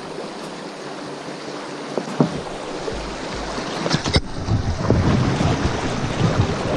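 River water rushing over a shallow rapid around an inflatable boat, with a few sharp knocks about two and four seconds in. The water grows louder and rumbles lower from about four and a half seconds in.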